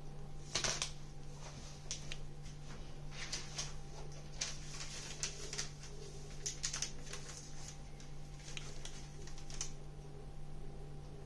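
Plastic and paper food packaging rustling and crinkling in short irregular bursts as items are handled, the loudest about half a second in, over a steady low hum.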